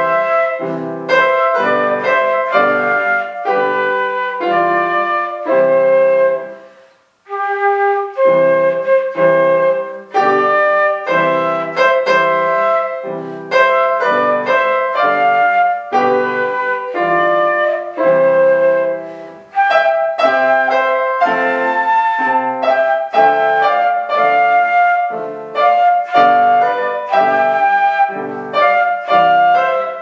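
Duet of concert flute and grand piano playing a tune in evenly paced notes, with a brief break about seven seconds in before the playing picks up again.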